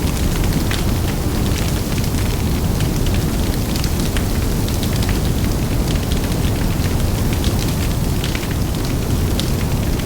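Large fire burning, with huge flames giving a steady low rumble and frequent sharp crackles scattered through it.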